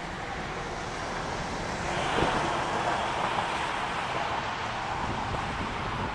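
Steady rush of road traffic and wind on the microphone, heard from a moving bicycle, growing a little louder about two seconds in.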